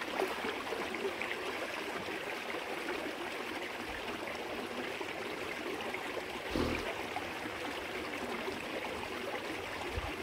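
Steady rush of a stream running into a rock pool, with a few soft low thumps as a person climbs down off the rock and wades into the cold water.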